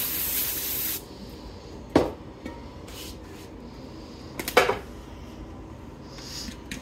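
Aerosol cooking spray hissing onto a glass baking dish, cutting off about a second in. Then two sharp knocks, one about two seconds in and another a couple of seconds later.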